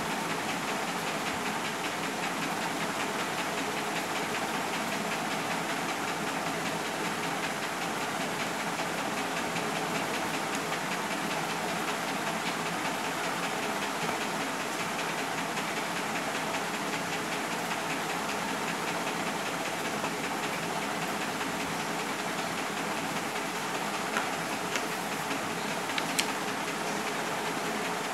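Steady rushing background noise, like a fan or hiss, with a couple of faint clicks near the end.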